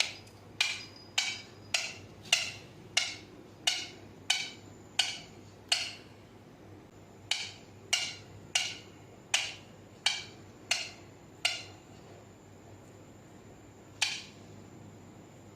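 Ringneck parrot making sharp knocking sounds while holding a chilli: a run of about ten quick knocks, a short pause, about seven more, then one last knock near the end.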